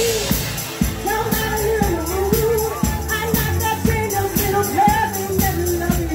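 A woman singing a melody into a microphone over amplified music with a steady beat.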